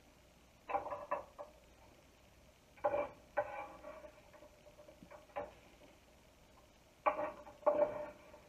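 Chopped apple pieces and a knife clattering against a bowl and a wooden cutting board as the apple is scraped into the bowl, in four short bursts of taps, the bowl ringing briefly after some of them.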